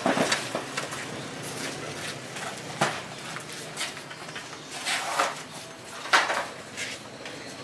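A handful of irregular knocks and clatters, the loudest about six seconds in, over a steady low hiss.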